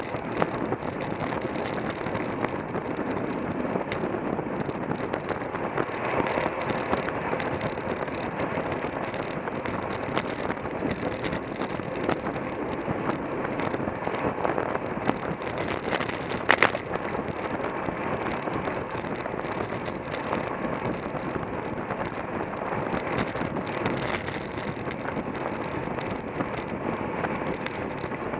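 Steady wind and road noise from a racing bicycle ridden at speed, with a few faint clicks and one sharper knock about halfway through.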